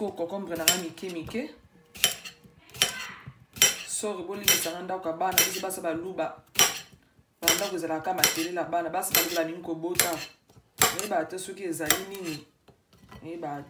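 Kitchen knife slicing a cucumber onto a ceramic plate, the blade clicking against the plate with each cut, about once a second.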